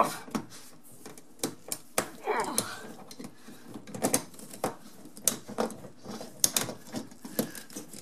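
Pliers clicking and scraping on the spring clamp of a dishwasher drain hose as the clamp is squeezed and worked loose. The clicks come irregularly throughout, with a brief murmur of voice about two seconds in.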